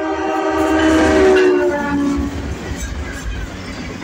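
Freight locomotive air horn sounding one long blast as the lead unit rushes past, its pitch dropping near the end, then cutting off a little over two seconds in. The rumble and wheel clatter of the passing CN freight train continue underneath and after it.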